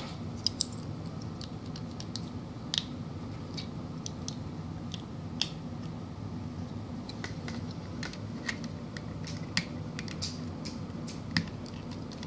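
Plastic Lego bricks clicking and snapping as small pieces are handled and pressed together, irregular sharp clicks with a few louder snaps, over a steady low background hum.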